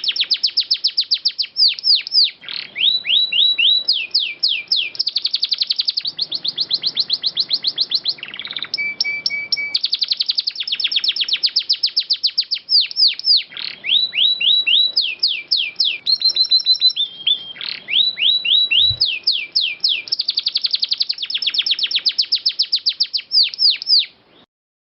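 Domestic canary singing long rolling trills: fast runs of repeated high, descending notes. Each run switches to a new phrase every second or two with no pause, and the song cuts off just before the end.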